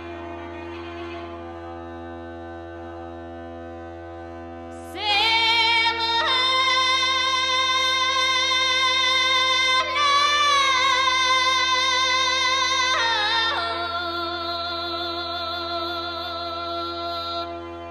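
Bulgarian gaida (bagpipe) playing over its steady low drone. About five seconds in, a female voice comes in loudly with long, wavering held notes, then carries on more softly near the end.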